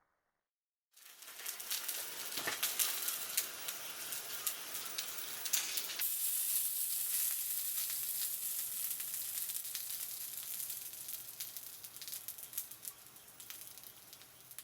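Food frying in hot oil, a dense sizzle full of small pops and spatters, starting about a second in; about six seconds in the sizzle turns brighter and more hissy.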